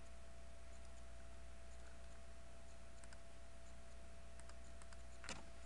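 A steady low background hum with a faint steady tone in it. A few faint small clicks are scattered through the second half, and one sharper click comes near the end.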